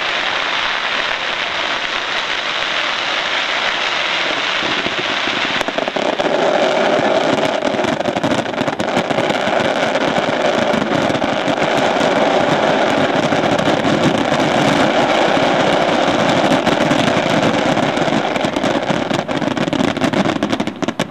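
Pains professional display fireworks: aerial shells bursting in a dense, continuous barrage of rapid cracks and bangs, which cuts off abruptly near the end.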